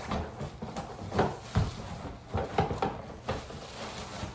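Irregular knocks, bumps and scrapes of cardboard packaging and plastic parts being handled while pulling items out of a tightly packed box.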